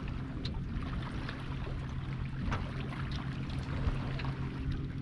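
Choppy lake water lapping and splashing against the hull of a small jon boat in quick, irregular little slaps, over a low steady hum.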